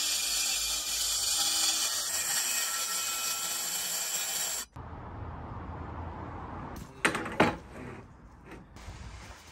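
Track saw running steadily as it cuts through a 22mm coated OSB floor panel along its guide rail, stopping abruptly about four and a half seconds in. A few seconds later come a couple of sharp knocks.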